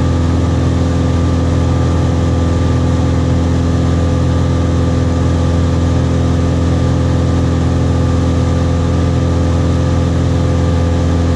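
Light aircraft's engine and propeller running at a steady cruise, a constant drone heard inside the cabin with rushing air noise and no change in pitch.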